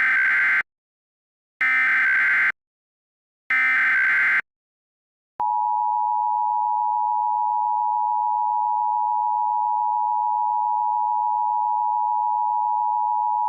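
Emergency Alert System SAME header: three short bursts of rapid digital data tones about two seconds apart. About five seconds in, the steady EAS attention tone begins and holds, announcing an emergency alert.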